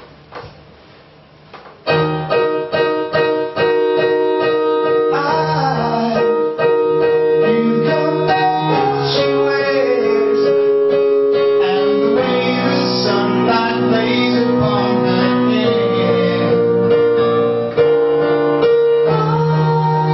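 Digital piano played live, coming in about two seconds in with repeated struck chords, then a man singing along over the keyboard.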